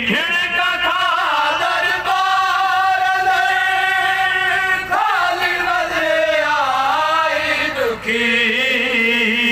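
A man singing a marsiya, a Shia elegy, solo into a handheld microphone. He holds long notes with wavering pitch, in phrases that break off about two, five and eight seconds in.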